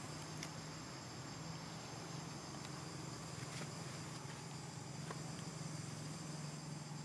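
Outdoor ambience: insects droning steadily in a high, even band, over a low steady hum, with a few faint clicks.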